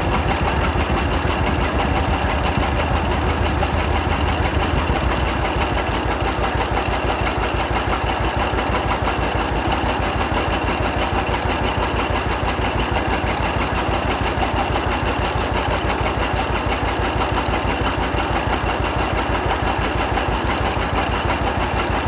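1936 John Deere D's two-cylinder engine running steadily with an even, rapid beat of firing pulses.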